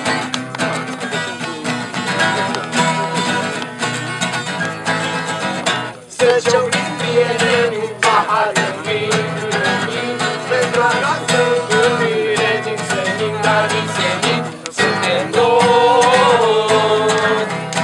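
A group of young people singing a song to two strummed acoustic guitars. The music drops away for a moment twice, about six and fifteen seconds in, and picks up again with a stronger sung line each time.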